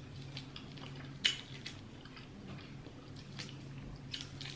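Close-miked wet chewing and mouth clicks while eating seafood boil in butter sauce, with one sharper click a little over a second in, over a low steady hum.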